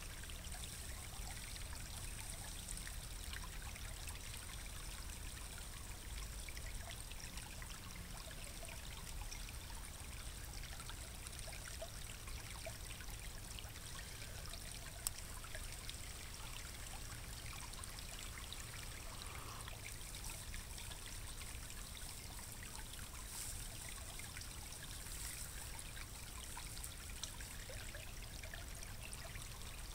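A small creek running, a steady trickling wash of water.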